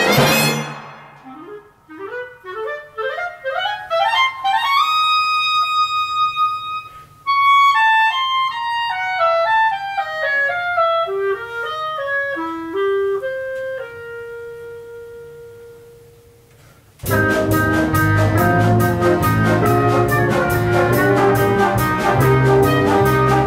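A solo clarinet plays unaccompanied after a loud band chord cuts off. It climbs in quick runs, winds back down and ends on a held note that fades. About seventeen seconds in, the full big band comes in with drums keeping a steady beat.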